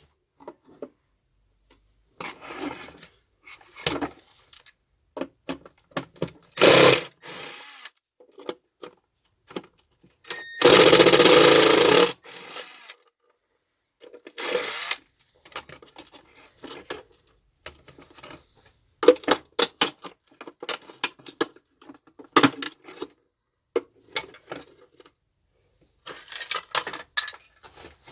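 Hand tools working on a vacuum cleaner's plastic housing during disassembly: scattered clicks, knocks and scrapes. About eleven seconds in comes a louder, steady noise lasting about a second and a half.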